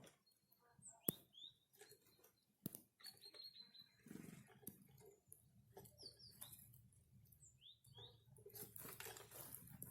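Small forest birds at a winter feeding spot, faint: short, high chirps and call notes, with a few sharp clicks and some rustling in between.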